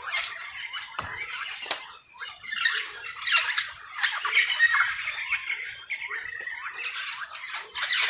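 A chorus of many wild birds calling and squawking in short, overlapping, sweeping calls, over a steady high-pitched whine.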